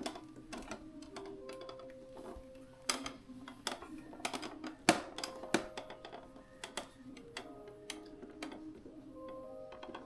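Irregular plastic clicks and taps as a refrigerator ice maker's parts are unscrewed and worked loose, the sharpest about three and five seconds in, over quiet background music.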